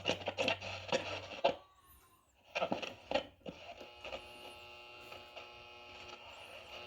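Arvin 62R98 transistor radio's speaker while it is tuned between stations: crackles and clicks of static, a brief drop-out, then a steady buzzing tone with a low hum from off-station noise.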